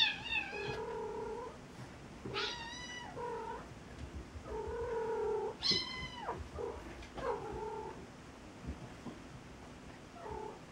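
Cat meowing again and again: a series of drawn-out meows, several of them falling in pitch.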